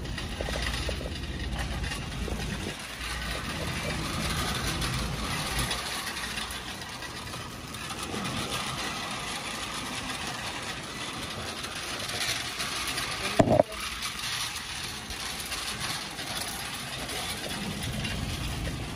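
Shopping cart rolling along a store floor with a steady low rumble, and one sharp knock a little past the middle.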